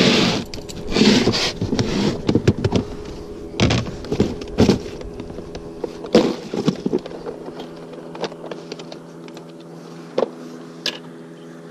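Plastic tackle boxes being opened and rummaged: lids, latches and trays knocking and clicking, hard plastic lures clattering, busy for the first several seconds and then only a few scattered clicks, over a faint steady hum.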